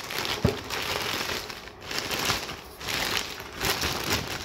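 Clear plastic packing bag crinkling and rustling in irregular bursts as a hand pulls at it inside a cardboard shipping box.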